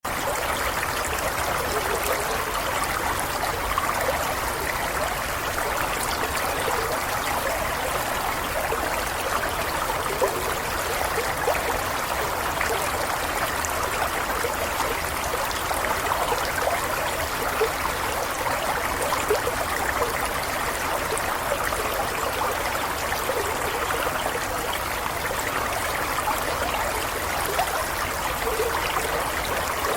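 A small stream running steadily, water trickling and gurgling over stones.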